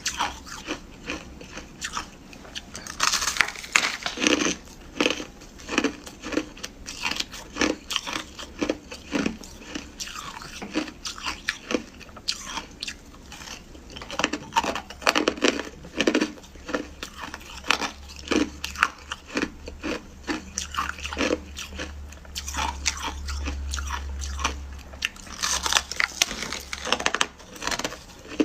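Close-miked crunching and chewing of freezer frost ice: quick bites that crackle sharply, followed by runs of irregular crunchy chews.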